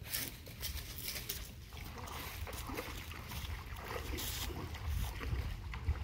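Low wind rumble on the microphone, with light splashing from feet wading into shallow water. Faint distant voices are also present.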